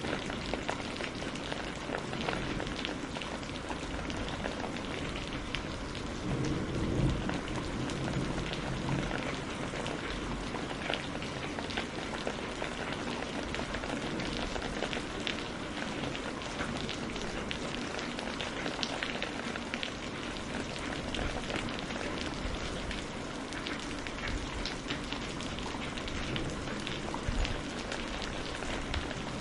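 Steady rainfall, a continuous hiss with many separate drops heard hitting, and a brief swell in level about seven seconds in.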